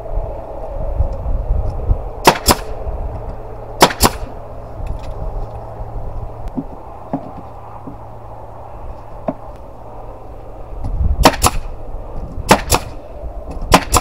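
Pneumatic nailer firing nails into pine boards: five sharp double clacks, two a few seconds in and three close together near the end, over a steady low hum.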